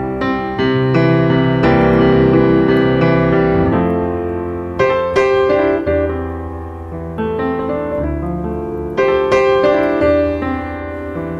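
Background piano music: notes struck and left to ring, over held low bass notes.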